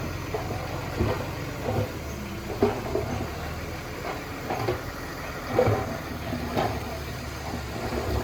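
Diesel engine of heavy earthmoving machinery running steadily, with short clanks about once a second.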